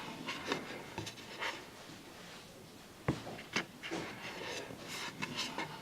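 Wooden chessboard being handled: light rubbing and soft clicks of wood, with one sharper knock about three seconds in.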